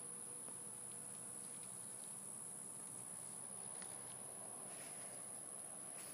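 Insects trilling steadily in one unbroken, high-pitched note, over faint outdoor background.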